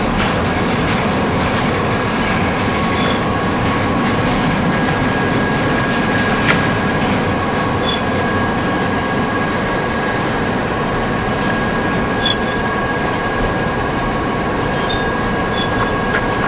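Union Pacific double-stack container train rolling past at close range: a steady, loud rumble of steel wheels on the rails, with a thin, steady high squeal over it and a few sharp clicks.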